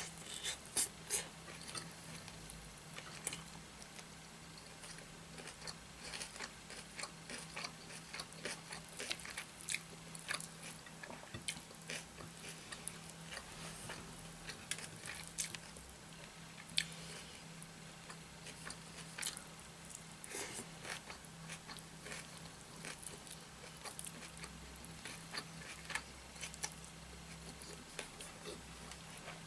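Close-up chewing and eating-by-hand sounds of chicken curry and rice: many small irregular wet clicks, smacks and crunches over a faint steady hum.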